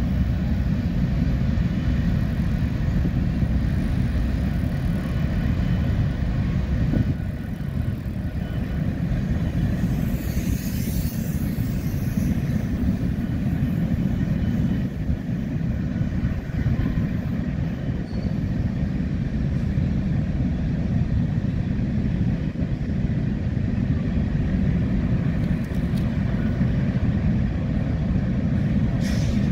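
Diesel locomotives of a freight train give a steady low rumble as the train creeps past. A brief high hiss comes about ten seconds in.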